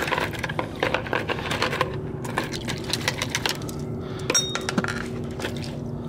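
Small starter-motor gears washed by hand in a plastic bowl of petrol: liquid sloshing and the metal gears clinking against each other, busiest in the first two seconds, with one bright clink about four seconds in.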